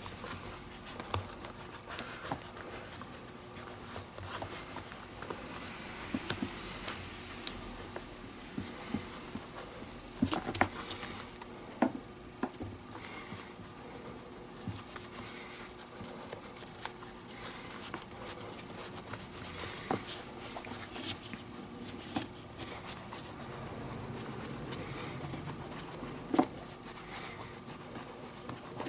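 Fingers rubbing moisturizing cream into the leather lining of a baseball glove: faint rubbing and handling of the leather, with a few soft clicks and taps, over a faint steady hum.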